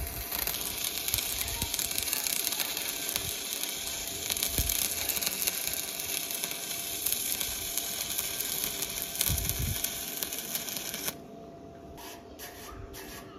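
Stick (arc) welding with a Bestarc MIG145 multi-process welder: the electrode arc gives a steady crackling sizzle as it runs along a steel joint, then breaks off suddenly about eleven seconds in.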